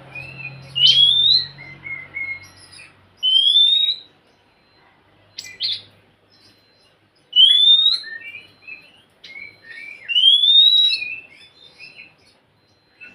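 Oriental magpie-robin (kacer) singing: four loud rising whistled phrases with shorter chattering notes between them.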